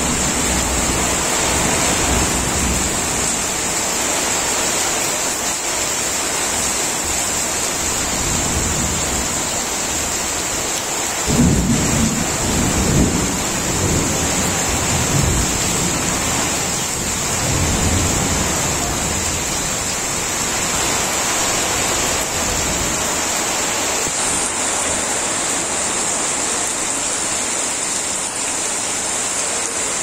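Heavy nor'wester rain pouring steadily onto corrugated tin roofs, with low rumbles of thunder about a third of the way in and again a few seconds later.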